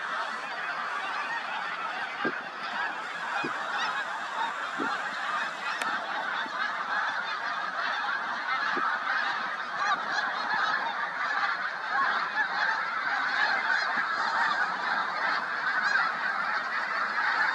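A large flock of snow geese calling in flight: a dense, steady chorus of many overlapping honks.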